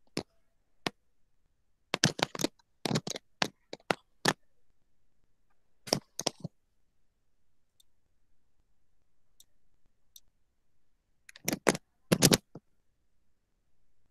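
Computer mouse clicking in a few short clusters, about two, three to four, six and twelve seconds in.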